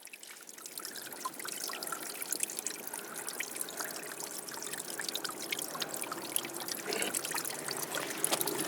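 Water trickling and dribbling in a small stream, a dense patter of tiny splashes that fades in over the first second and then runs steadily.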